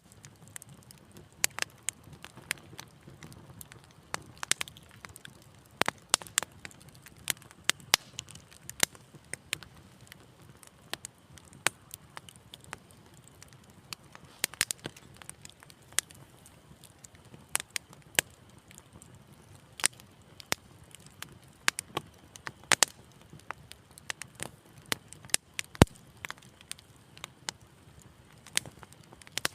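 Wood fire crackling in a fireplace: irregular sharp pops and snaps over a soft low rumble of the flames.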